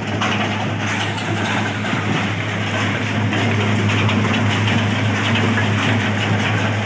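Ice-loading machinery running with a steady low hum, while crushed ice slides down a metal chute into a steel hopper with a continuous hiss and fine rattle.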